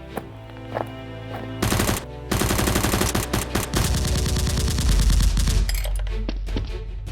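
Background music, then from about a second and a half in a loud burst of rapid automatic gunfire that keeps going, with a deep rumble under it from about five seconds in.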